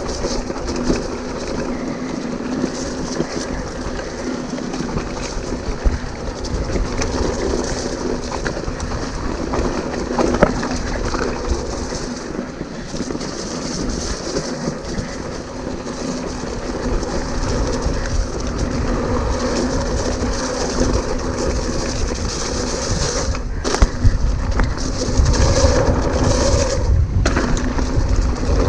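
Hardtail mountain bike riding fast down a dirt trail, heard from a handlebar-mounted camera: wind buffeting the microphone, tyres rolling on packed dirt, and the bike rattling over bumps with a few sharp knocks. The wind rumble grows louder near the end.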